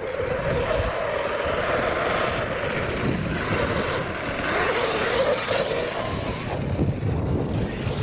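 Arrma Outcast 8S 1/5-scale brushless electric RC truck driving on sand, its motor whine rising and falling with the throttle.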